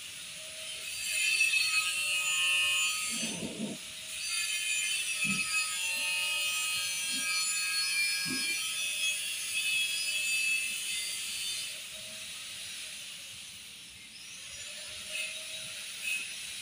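Hand work on the timing-chain front of a bare Toyota 2TR engine: tools and parts rubbing and scraping, with a few light knocks about three, five and eight seconds in. A layer of high sustained tones sits over it.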